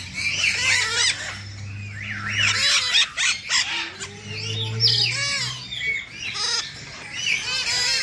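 A cage of green parrots calling together: many short, rising-and-falling squawks and chatter, overlapping without pause.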